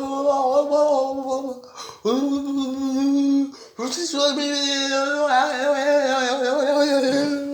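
A person's voice making wordless vocal sounds: three long held notes at a steady pitch, the last one the longest.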